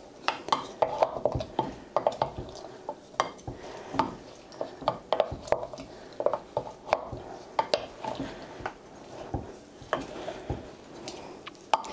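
Long wooden spoon stirring fermenting apple pieces and liquid in a large glass jar, with many irregular knocks and clicks against the glass. This is the daily stir of an apple cider vinegar brew.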